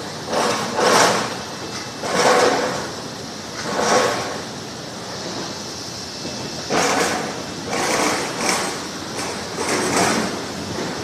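Carrot washing and polishing machine running, with carrots tumbling in the washer and rising and falling swells of rattling, rushing noise every second or two over a steady machine noise.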